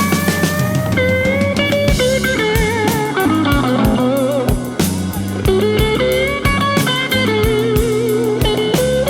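Blues-rock backing music: an electric guitar solo with bent notes and vibrato over bass and a drum kit keeping a steady beat.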